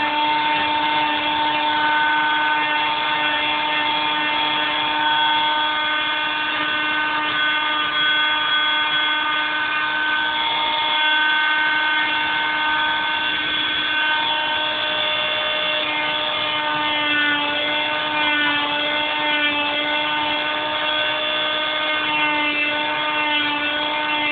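Electric grinder running at speed on a wooden walking stick, smoothing the edges of the handle and knots: a loud, steady whine whose pitch dips slightly now and then in the second half as the tool bears on the wood.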